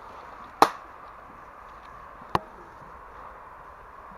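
Airsoft guns firing single shots: two sharp cracks about a second and a half apart, the first louder, with another just at the end.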